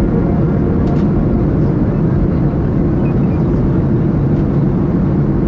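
Steady low rumble of jet engines and airflow heard inside the cabin of a Ryanair Boeing 737 airliner.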